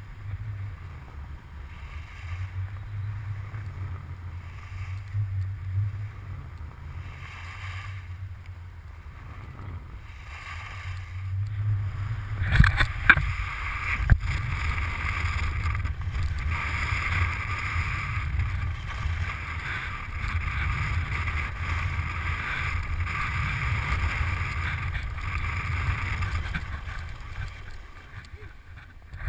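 Wind buffeting the GoPro camera's microphone and skis hissing through snow during a downhill run; the rushing gets louder a little under halfway through. Two sharp knocks come close together just after that.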